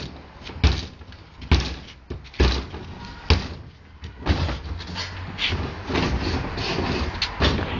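Hand tools working sticks: sharp knocks on wood about once a second, then a busier stretch of quicker knocking and scraping in the second half.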